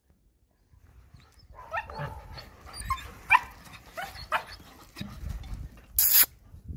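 German Shepherd puppies yipping and squealing in play, a run of short high calls roughly two a second that starts after about a second and a half. About six seconds in comes a brief, loud, harsh burst.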